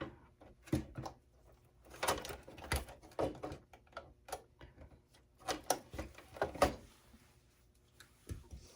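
Irregular knocks and clatters of metal and plastic computer parts being handled while a desktop PC is taken apart, coming in several short clusters.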